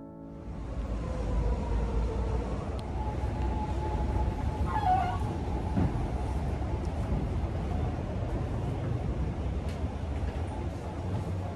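Outdoor city background: a steady low rumble of traffic, with a short falling squeal about five seconds in and a few faint clicks.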